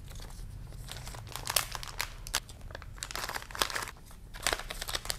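Plastic ziplock bags crinkling and rustling in irregular bursts as scrunchies and freebies are packed into them.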